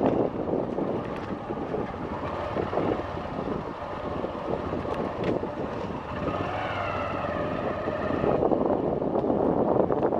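Wind buffeting the microphone in uneven gusts, with a faint wavering higher tone from about six to eight seconds in.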